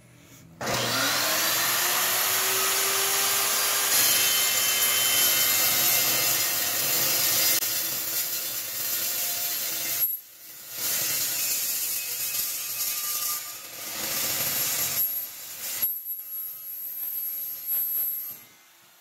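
Evolution chop saw starting up and cutting through steel stock, throwing sparks. The motor spins up about half a second in and runs under load through the cut. It pauses briefly about ten seconds in, cuts again, and stops near the end.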